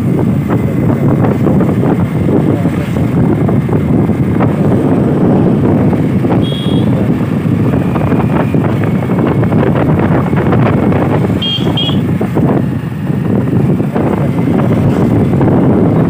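Motorbike on the move: a steady rush of wind and road noise over the engine. Two brief high toots come partway through.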